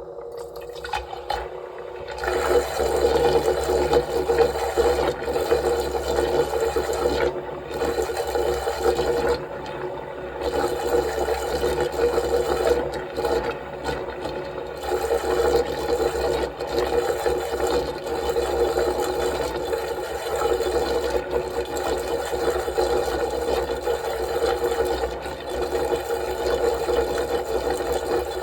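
Magnetic stirrer spinning a magnet sphere and two steel spheres in water to make a vortex: steady machine running with swirling water, coming up to full strength about two seconds in.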